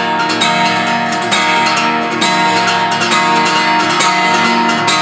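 Guitar strummed at full speed in the galop (gallop) strumming pattern, quick down-up-down strokes repeating in a steady rhythm.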